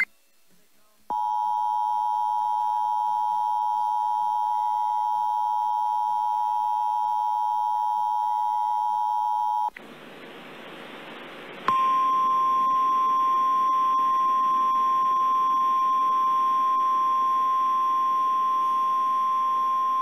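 Emergency Alert System alert tones announcing a tornado warning. A steady two-tone EAS attention signal sounds for about eight seconds. After about two seconds of radio hiss comes the single steady 1050 Hz NOAA Weather Radio warning alarm tone.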